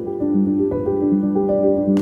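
Background music of slow, held notes with a steady, calm melody.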